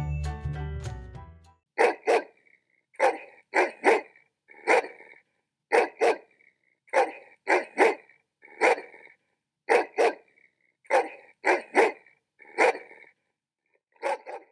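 A dog barking over and over, in single barks and quick double barks about once a second. A short music jingle ends about a second and a half in, just before the barking starts.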